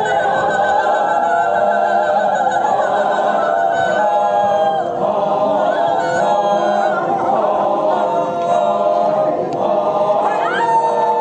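A group of Sümi Naga men from a warrior dance troupe singing together without instruments, in long held phrases with short breaks between them.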